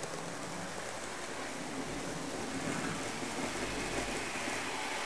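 HO-scale model train running on the layout's track, heard as a steady rushing noise with a slight swell now and then.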